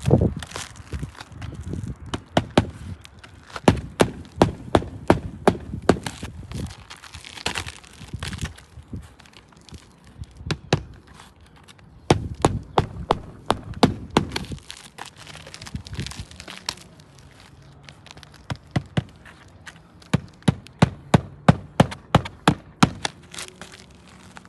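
Tool work on asphalt roof shingles during a repair attempt: runs of sharp knocks, about two to three a second, with short pauses between the runs.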